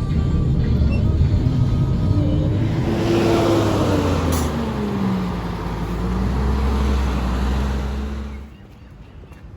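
A motor vehicle's engine running with a low rumble, its note rising and then falling away, before the sound cuts off sharply near the end.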